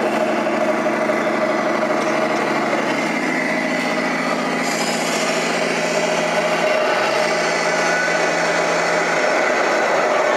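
Radio-controlled scale trucks driving past, with a steady running note that steps down and back up a few times, over the general din of an exhibition hall.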